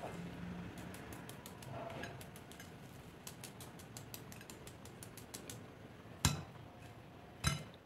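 Fine, rapid crackling clicks as crisp, breadcrumb-coated fried potato balls are handled and pressed between the fingers, followed by two louder short knocks near the end.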